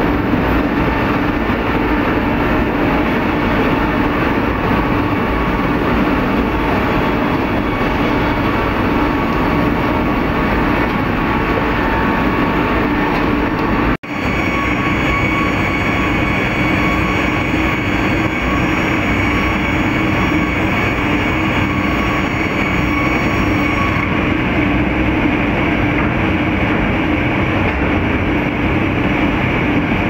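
Sawmill line machinery running: circular saws, drive motors and conveyors make a loud, steady industrial din with whining tones on top. The sound cuts out for an instant about halfway through, and a higher whine is stronger afterwards.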